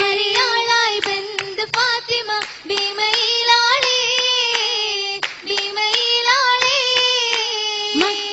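Oppana: a chorus of girls sings a Mappila song in unison, with a high, ornamented melody, while clapping their hands in rhythm.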